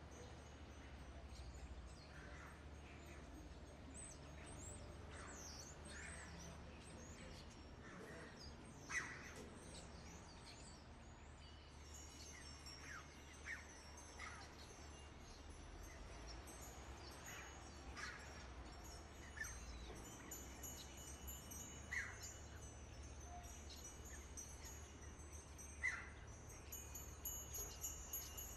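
Faint background of a steady low hum with short, high, bird-like chirps scattered irregularly through it. Faint high ringing tones join from about halfway through.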